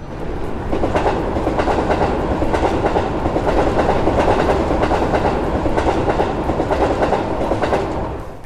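A train passing: wheels rolling over rail joints with a steady, dense rumble that starts suddenly and falls away near the end.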